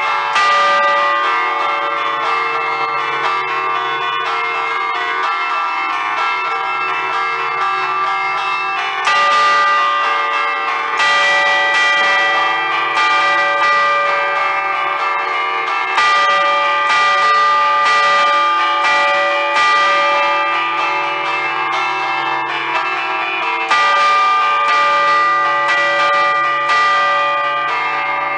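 Five-bell Ambrosian peal in D, cast by Giorgio Pruneri in 1875, chimed by hand: cords pull the clappers against the stationary bells in a festive allegrezza, a fast unbroken run of overlapping strikes. Heard from right beside the bells, so the strikes are loud and the bells ring on between them.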